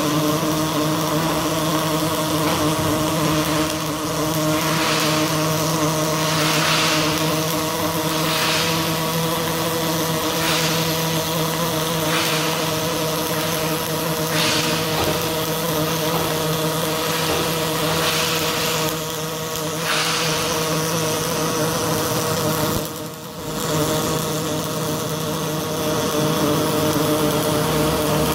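Robotic MIG welding arc crackling and hissing steadily as the torch lays a bead on steel, over a steady hum. It swells slightly every second or two and breaks off briefly once, near the end.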